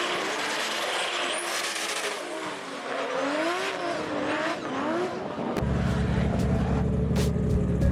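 Drift car engine revving up and down through a slide over a hiss of tyre noise, the track wet. About two-thirds of the way in it cuts off abruptly and music with a heavy bass takes over.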